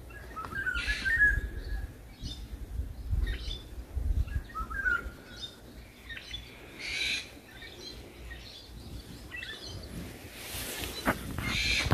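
Several woodland songbirds chirping and calling, with short trills and scattered notes, over a low rumble. A brief rush of noise comes near the end.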